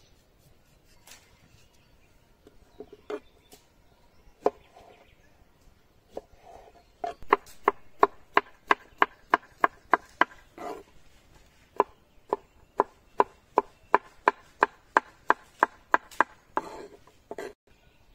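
Knife chopping peeled cucumber into cubes on a wooden cutting board: a few scattered cuts, then a steady run of sharp knocks on the wood, about three a second, broken by a short pause. A brief scrape follows near the end.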